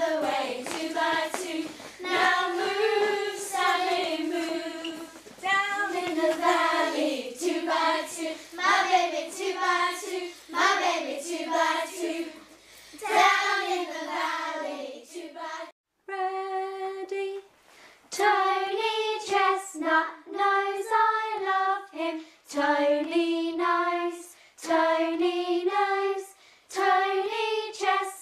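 A group of children singing a singing-game song together. The singing breaks off briefly a little past halfway and then starts again.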